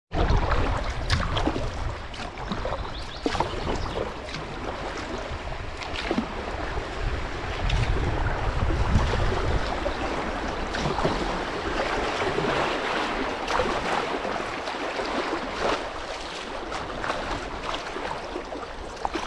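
Kayak paddle strokes dipping and splashing in river water, irregular, with wind gusting on the microphone as a low rumble now and then, strongest about eight seconds in.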